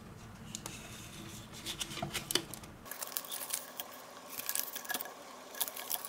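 Aluminium tape and its paper backing crinkling and crackling as the backing is peeled away and the tape handled onto a plastic dust case: irregular sharp crackles, thickest around two seconds in and again near five seconds.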